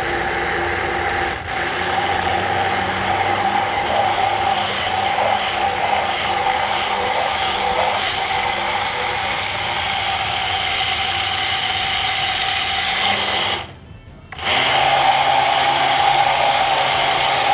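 Hand-held immersion blender running steadily with a motor whine, blending ground flaxseed into oil in a plastic bowl. It cuts out for under a second near the end, then starts again.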